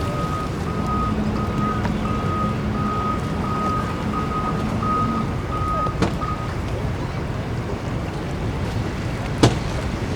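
A vehicle's reversing beeper sounding about twice a second over steady motor and wind noise, stopping about six seconds in. A sharp knock sounds near the end.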